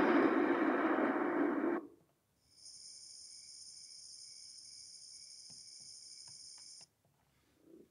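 Built-in sleep sounds of a Lumie Bodyclock Shine 300 wake-up light playing through its small speaker. A rushing ocean-waves track cuts off about two seconds in. After a brief gap, a steady high-pitched crickets track with a few faint clicks plays and stops shortly before the end.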